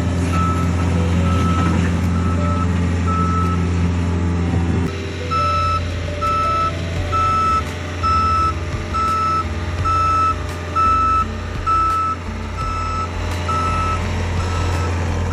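Skid steer loader's backup alarm beeping steadily, about two beeps a second, over its running engine. About five seconds in, the engine note changes and its loudness rises and falls as the machine works.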